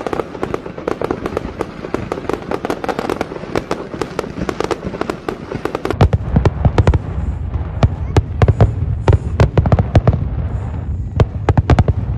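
Fireworks display: rapid crackling pops and bangs, joined about halfway through by heavy, deep booms from bursting shells.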